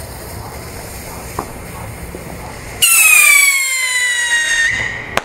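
A steady hiss, then about three seconds in a whistling firework starts its loud, piercing whistle, sliding slowly down in pitch for a couple of seconds before it cuts off.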